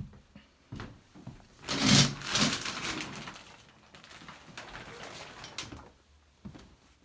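A shower curtain pulled back along its rod, the rings scraping as they slide, most loudly about two seconds in, with a few clicks and knocks before and after.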